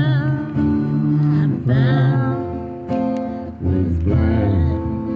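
Acoustic guitar strummed under a slow sung melody in a live worship song.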